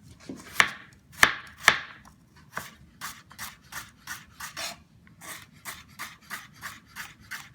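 Kitchen knife chopping vegetables into quarter-inch pieces on a cutting board: three sharp knocks of the blade on the board in the first two seconds, then a steady run of lighter slicing cuts, about two or three a second.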